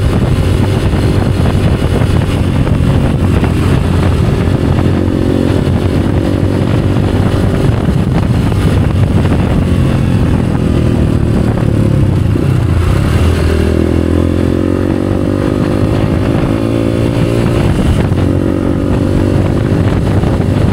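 Motorcycle engine running steadily at road speed, its pitch rising a little about two-thirds of the way through as it speeds up.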